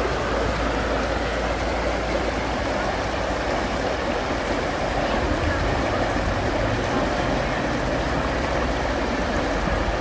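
Steady rush of running water, with a constant low rumble underneath.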